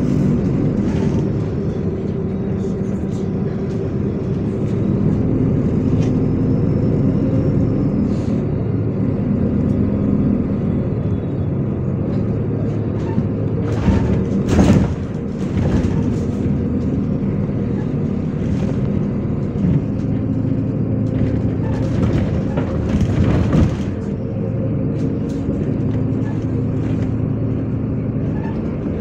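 MAZ-103 city bus under way: steady engine hum whose pitch shifts as it speeds up and slows, with road noise and several sharp knocks and rattles, the loudest about halfway through.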